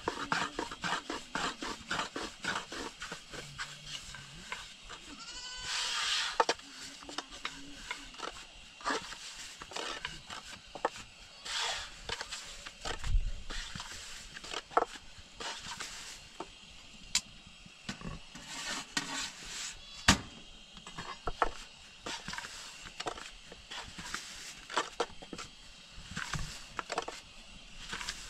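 A thin wooden rolling pin clicking and knocking against a round wooden board as flatbread dough is rolled out, in quick irregular taps. Livestock bleat at times, once clearly about six seconds in.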